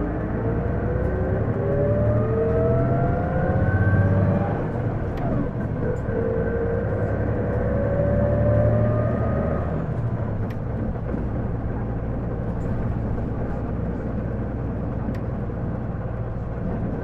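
Isuzu PJ-LV234L1 city bus heard from on board as it accelerates twice. Each time a whine rises in pitch over the engine, then it settles to steady running noise after about ten seconds. This is the bus's abnormal whine under acceleration, like an automatic transmission's, which the owner suspects comes from the transmission.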